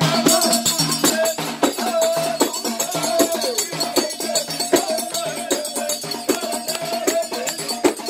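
Live Moroccan folk music: hand drums beating a steady, fast rhythm with jingling rattles, under a wavering, held melody line.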